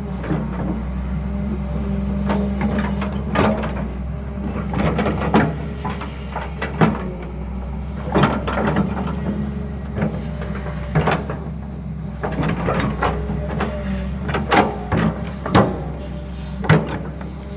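Excavator's diesel engine running steadily at work, with irregular clanks and knocks throughout.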